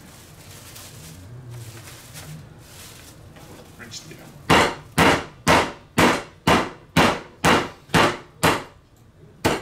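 Metal meat pounder beating a chicken breast flat through plastic wrap on a cutting board. About ten sharp strikes come at two a second, starting about halfway through.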